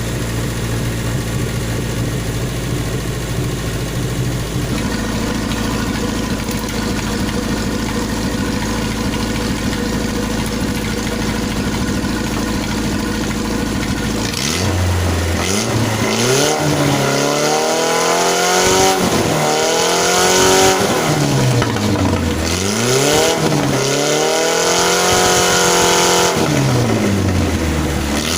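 Exhaust note of a motorcycle fitted with a car engine: idling steadily, the idle stepping up slightly about five seconds in, then revved up and down several times in long sweeps through the second half.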